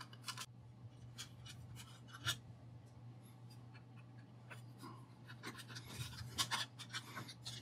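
Hand screwdriver backing screws out of a milling machine's sheet-metal head cover: faint scattered clicks and scrapes, with one sharper click a little over two seconds in and a quicker run of ticks near the end.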